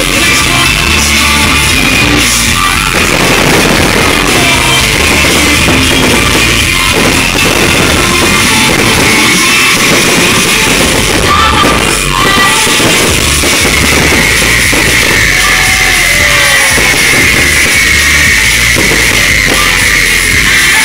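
Loud rock music with a pounding drum kit.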